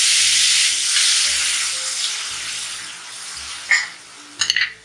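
Water poured into a hot wok of spices frying in ghee, hissing and sizzling loudly at once, then dying down over about four seconds. A few short knocks come near the end.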